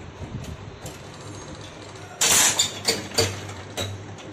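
Diesel injector nozzle spraying on a hand-lever nozzle tester. There are a few light metallic clicks first, then about two seconds in a loud hiss of fuel spray, followed by several shorter spurts as the lever is pumped. The nozzle is choked.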